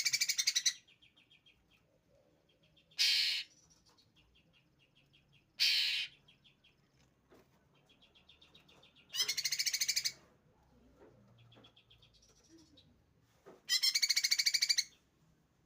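Caged songbird in full song: loud, rapid trilled phrases of about a second each, five times, with softer chattering trills between. These are the 'tembakan' bursts of a bird that has just come into song ('gacor').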